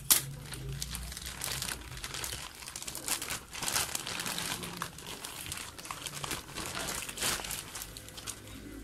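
Thin plastic courier mailer bag crinkling and rustling as it is pulled open by hand and a bubble-wrapped box is drawn out of it, with one sharp snap right at the start.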